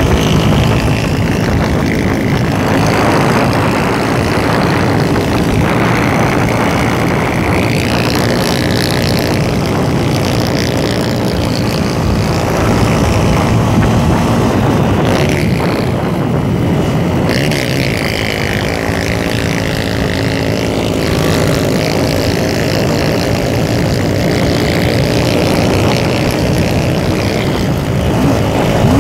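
Motorcycle engine running steadily at cruising speed, around 85–100 km/h, under heavy wind rush over the microphone.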